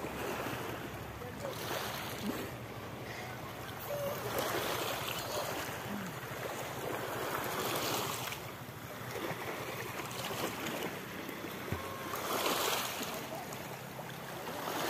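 Small sea waves washing onto a pebble shore, the wash swelling and fading every few seconds.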